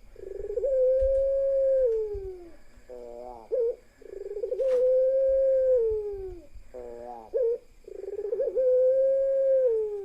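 Puter pelung (long-cooing domestic collared dove) cooing in repeated phrases about every four seconds. Each phrase is a short stuttering lead-in followed by a long, drawn-out steady coo that slides down in pitch at its end. A single sharp click comes near the middle.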